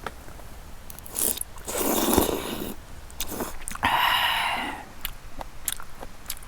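Close-up eating sounds: a person chewing and slurping a mouthful of mulhoe, cold raw-fish soup with abalone and rockfish. There are two louder bursts about two and four seconds in, then soft chewing clicks.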